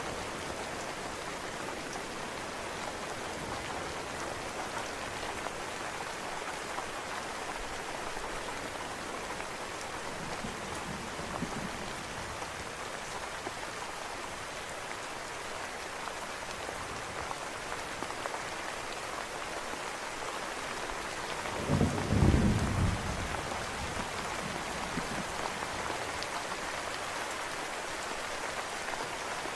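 Steady rain with a short, loud rumble of thunder about three-quarters of the way through.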